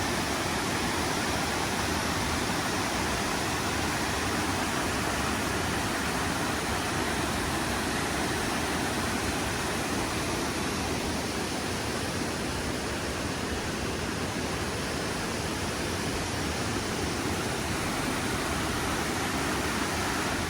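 Fast-flowing mountain creek water rushing steadily, an even hiss with no breaks.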